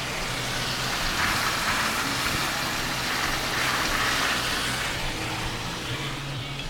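Car driving on a snow-plowed street, heard from inside: a steady low engine hum with tyre and road noise that eases off near the end.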